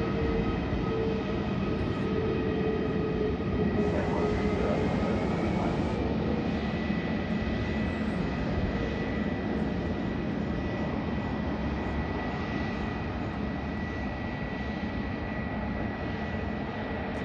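Airbus A320neo jet's CFM LEAP-1A turbofan engines running as the airliner rolls out on the runway after landing: a steady rushing noise with a few thin whining tones, one of which drops out about four seconds in, the whole sound slowly easing off.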